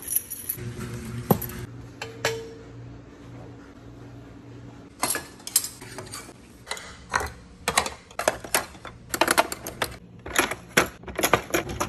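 Dishes and kitchen utensils clattering as they are put away: a few isolated clicks at first, then from about halfway a quick run of sharp clinks and knocks of plastic and metal ware being taken off a dish rack and dropped into a drawer.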